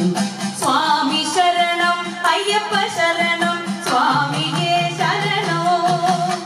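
A woman singing a Sopana Sangeetham devotional song, holding long ornamented notes that slide and waver in pitch over a steady low drone, with regular light strokes of an idakka hourglass drum.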